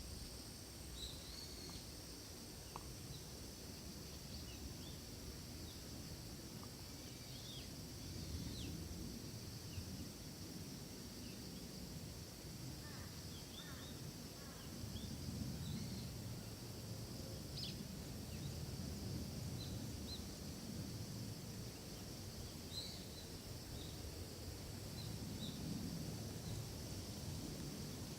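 Forest ambience: a steady high insect drone with scattered short bird chirps, over a low rumble that swells several times.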